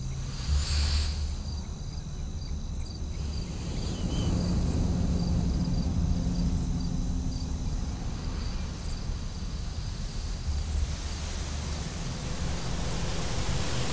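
Insects chirring steadily over a low, steady rumble.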